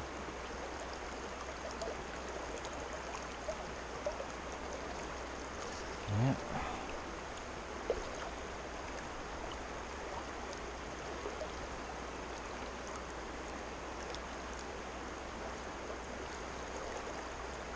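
Creek water flowing steadily, an even rushing hiss. A brief man's voice sound falls in pitch about six seconds in.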